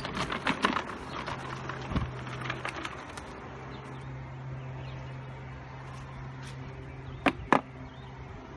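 Electric skateboard running by itself at walking pace, its motor giving a steady low hum, with light clicking and rattling from the board rolling over concrete during the first few seconds. Two sharp knocks come near the end.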